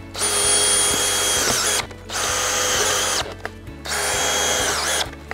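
Cordless drill driving screws through a galvanised fence-post anchor base into its steel piles. It runs in three spurts of about a second each, each ending as the motor winds down.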